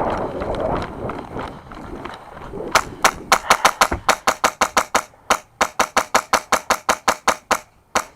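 Rustling movement noise, then from about three seconds in an airsoft rifle fires a rapid string of sharp shots, about six a second, broken by brief pauses.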